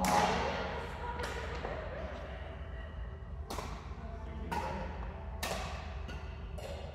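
Badminton racquets striking a shuttlecock: one sharp hit at the start, then after a pause a run of four hits about a second apart, as in a rally, over faint voices in a large hall.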